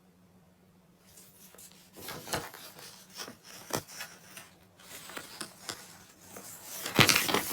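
Small objects handled on a hard surface: a run of scrapes, rubs and clicks, with a louder clattering rustle about seven seconds in.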